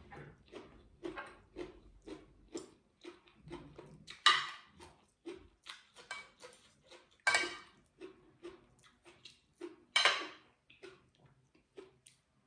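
Close-up chewing of a mouthful of stir-fried pork and bok choy with rice, with soft mouth clicks about two or three times a second. Three louder scrapes of a spoon and fork on a ceramic plate come at intervals.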